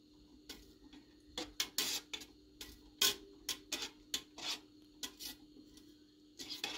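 A utensil stirring a liquid mixture with walnuts and dried apricots in a pot on the stove, scraping and knocking against the pot in irregular strokes. A faint steady hum lies beneath.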